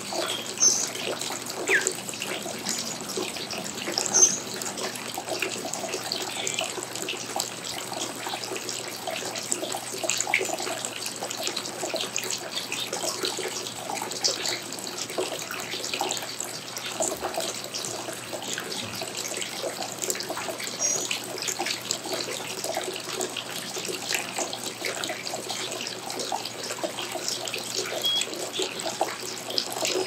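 Scattered short, high chirps of small birds over a steady wash of trickling, splashing water.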